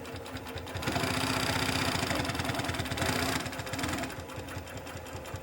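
SEWPRO 8810B post-bed roller-feed leather sewing machine running continuously, its needle stitching in a fast, steady run. It is louder from about a second in until past the middle, then runs on more quietly.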